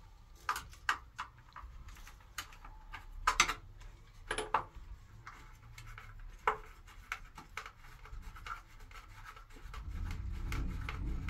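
Irregular clicks, taps and scraping of a plastic bathroom wall light fixture being handled and fitted with a screwdriver, the sharpest clicks a little over three seconds in. A low rumble comes in near the end.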